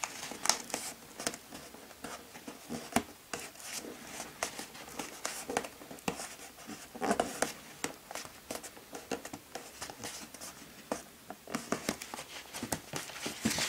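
Fingers pressing and rubbing moistened brown gummed paper tape down onto a torn cardboard box edge: scattered small scratches, taps and papery rustles.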